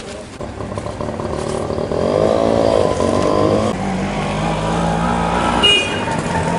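A motor vehicle's engine revving up and back down, then running steadily, with a short sharp sound near the end.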